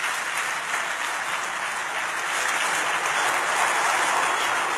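A large audience applauding steadily, the clapping blending into an even wash of sound.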